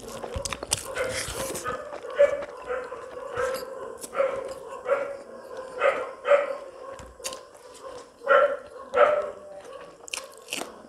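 A dog whining and yipping in short, pitched calls, repeated unevenly about once a second.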